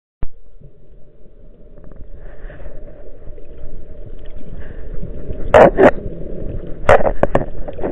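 Muffled sloshing of sea water against a camera in an underwater housing just below the surface, with a click at the very start and a few louder splashes about five and a half and seven seconds in.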